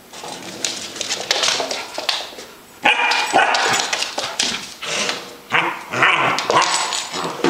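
Basset hound puppy barking in short, sharp, repeated yaps, about one every half second to second, starting about three seconds in and aimed at a metal tin. Before the barking there is a rough, noisy rustle.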